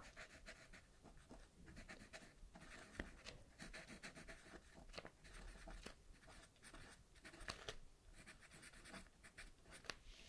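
Writing on paper at close range: quiet, quick scratchy strokes with short pauses between them.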